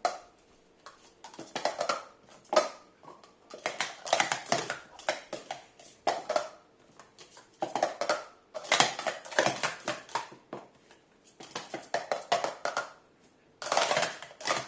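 Plastic sport-stacking cups clattering in fast runs of clicks as they are stacked up and down, in about six bursts with short pauses between them.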